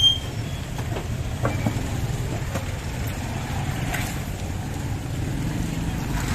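Steady low rumble of a motor vehicle's engine running, with a brief high squeak right at the start and a few faint knocks.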